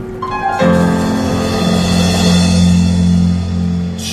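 Live stage band playing for a musical. After a few soft notes, a loud, full held chord with drums and cymbals comes in about half a second in and sustains, closing with a sharp crash near the end.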